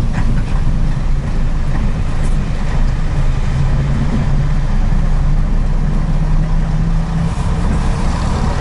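AC Cars railbus's underfloor diesel engine running steadily as the railbus moves slowly along the track, heard from inside the driver's cab.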